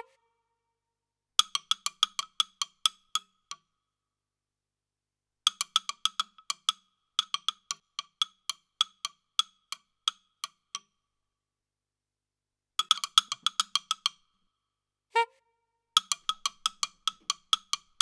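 Runs of quick, hollow wood-block knocks, about six a second, in bursts of one to two seconds with dead silence between them. A short rising whistle-like tone sounds about 15 seconds in.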